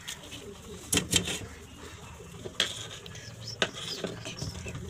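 Sharp clicks and taps, about four of them, as small parts are fitted into a plastic emergency-light housing by hand. A bird coos in the background.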